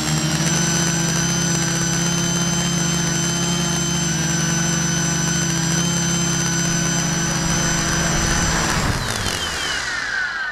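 Small quadcopter drone's electric motors and propellers buzzing steadily with a high whine as it comes down to the ground. About nine seconds in the motors cut and spin down, their whine falling in pitch and fading.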